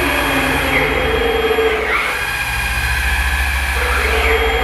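5-axis CNC router running with no workpiece: its axis drives whine in rising and falling pitch sweeps roughly every two seconds as the head moves and tilts, over a loud, steady machine hum.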